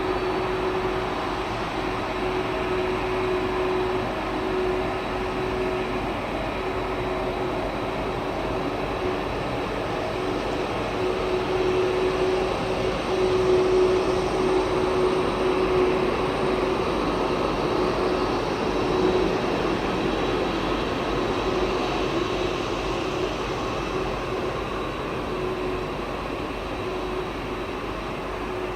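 Boeing 767-300 airliner's twin jet engines during takeoff: a steady roar with a humming tone, growing louder to a peak about halfway through and then slowly easing off.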